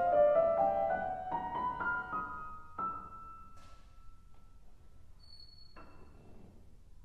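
Grand piano playing the closing bars of an art song: single notes climbing in pitch over the first three seconds, then one last soft note near the end that rings and fades away.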